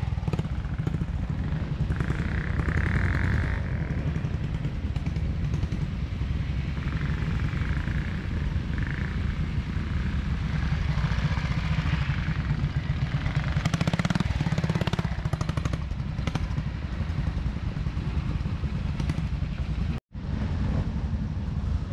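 Two-stroke single-cylinder trials engine of a TRS RR 300 sidecar outfit running close by at low revs, pulling steadily with small changes of throttle as it works through the woodland section.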